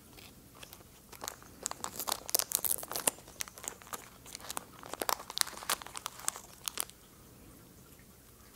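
Foil-lined cat-treat wrapper crinkling and crackling as it is torn open by hand. It is a dense run of crackles that stops about seven seconds in.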